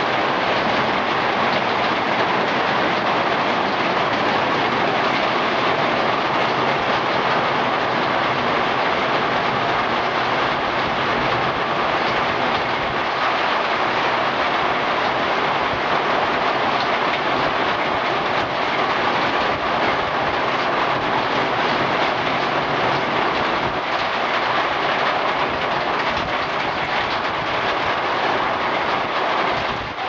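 Flash-flood water rushing past in a steady, loud, unbroken rush.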